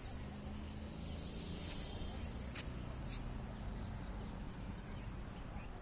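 Faint outdoor ambience: a low steady rumble with two brief, high chirps, about two and a half and three seconds in.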